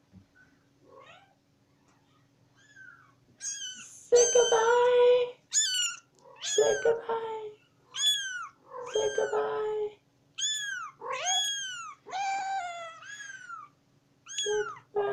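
Young kitten meowing over and over: high-pitched cries that fall in pitch, coming about one a second from three or four seconds in, after a faint start.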